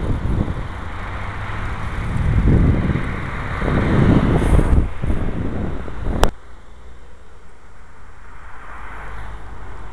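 Wind rumbling in gusts on the microphone of a moving camera, mixed with road and traffic noise. A single sharp click comes about six seconds in, after which the rumble is quieter.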